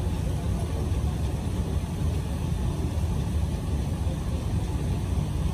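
Steady low rumble of wind buffeting the phone's microphone outdoors, with no distinct events.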